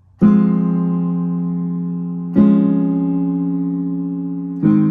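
Piano playing three sustained chords about two seconds apart, each struck and left to ring and fade, the soft, full-sounding opening of a piece.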